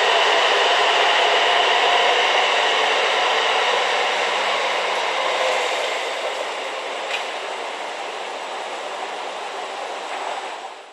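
Train running on rails with a steady noise and a faint whine. It grows quieter about halfway through, then fades out near the end.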